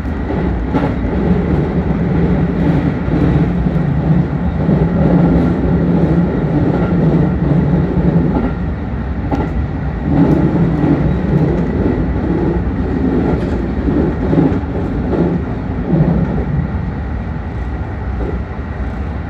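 JR 313 series electric train running along the line: a steady rumble of wheels on rails with irregular clicks and knocks from the track.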